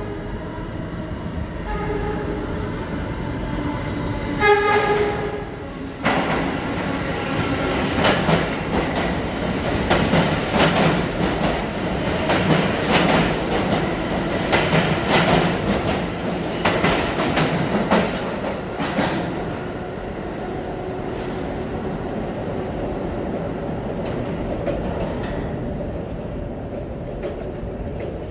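New York City subway train sounding two short horn blasts as it approaches, then running through an underground station without stopping, its wheels clacking over the rail joints. The rumble eases off after the cars have passed and fades away down the tunnel.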